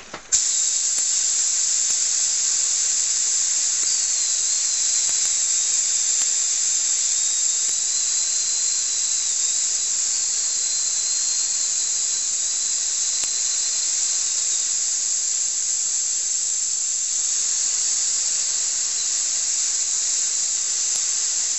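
Compressed air hissing loudly and steadily out of an air compressor's receiver tank as it is vented to draw the pressure down, with a faint whistle that wavers in pitch. It starts abruptly and cuts off abruptly near the end.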